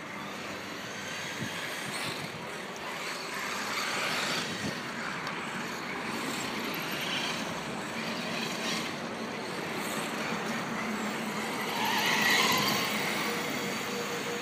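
Radio-controlled monster trucks, a Team Associated Rival among them, racing over a dirt track: their electric motors whine up and down in pitch as they accelerate and slide through turns, with tyres scrabbling and throwing dirt. The whine swells loudest about twelve seconds in.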